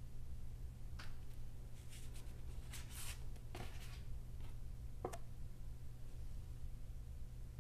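Stiff printed paper cards being handled: a handful of short rustles and taps as the cards slide against each other, over a steady low hum.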